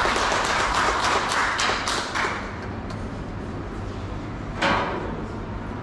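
A small audience clapping, the applause dying away after about two seconds. A single short burst of noise comes near the end.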